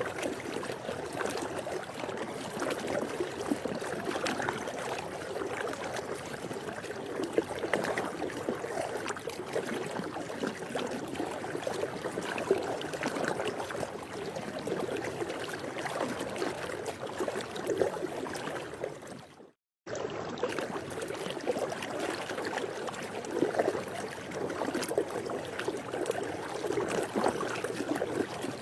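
Swimming pool water, a steady, gently fluctuating watery wash. About two-thirds of the way through it fades out, drops to silence for a moment and comes straight back.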